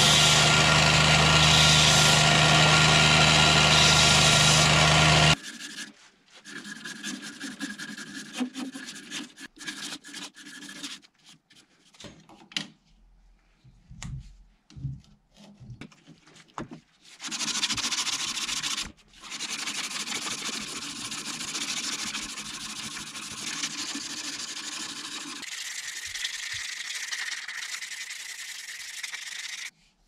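An electric belt sander runs steadily while a wooden knife handle is ground against the belt; it cuts off about five seconds in. Then comes hand sanding of the wooden handle with abrasive paper, at first in short scattered strokes and then as a steady rubbing that stops just before the end.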